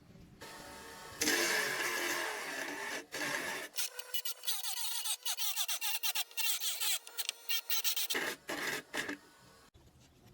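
Scraping and rubbing in short, irregular strokes as a ball bearing is worked into the PVC frame, from about a second in until near the end.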